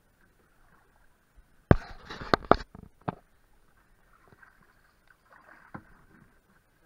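Paddling a plastic canoe: a quick run of sharp knocks and splashes about two seconds in, one more a moment later, then faint water sounds.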